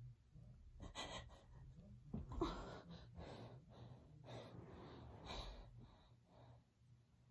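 A woman breathing hard and gasping from the exertion of push-ups, breaths coming about once a second, the loudest gasp about two and a half seconds in, growing fainter near the end.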